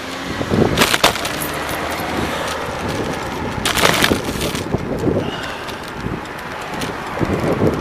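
Riding a bicycle in traffic: wind noise on the microphone and road rumble, with rattling knocks as the bike jolts over bumps, about a second in and again around four seconds.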